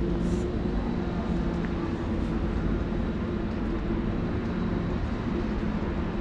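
Steady city street noise: a continuous low engine-like hum over a wash of traffic sound.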